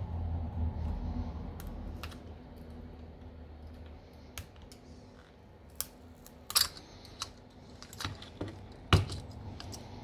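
Scattered small clicks and taps of a metal-tipped hand tool prying at a smartphone's motherboard and its flex-cable connectors, with two sharper clicks in the second half as the board is worked free.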